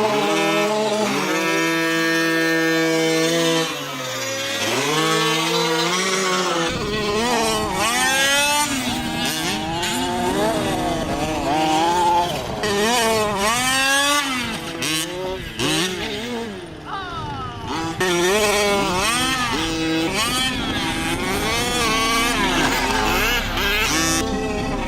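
Several radio-controlled race cars' motors running, their pitch repeatedly rising and falling as the cars accelerate and slow around the track, with more than one car heard at once.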